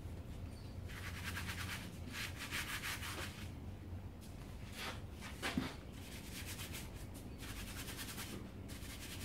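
Rubbing and scrubbing on a motorcycle tyre at the rim as the tyre is worked off, in several short spells of about a second each. There is a single knock about five and a half seconds in.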